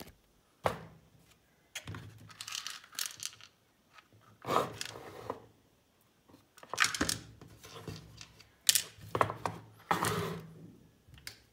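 Hard plastic housing halves of a car tire inflator being handled on a wooden tabletop: a string of separate knocks and short scraping clatters as they are set down and slid about.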